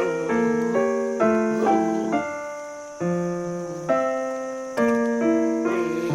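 Background piano music: chords and melody notes struck every second or so, each ringing and fading away.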